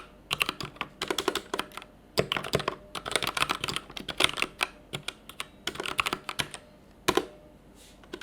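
Typing on a Vortex VX5 60% mechanical keyboard with Outemu Red linear switches: fast runs of keystrokes, pausing briefly about two seconds in and again about five. A single louder keystroke comes near the end, then the typing stops.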